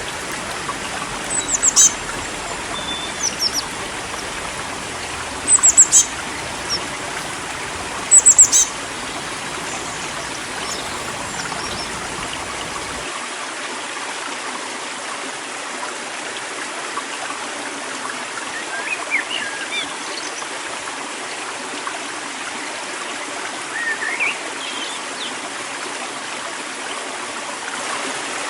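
River water running steadily, with small birds chirping over it: a few loud, short, high-pitched descending chirps in the first nine seconds, then softer, lower chirps later on.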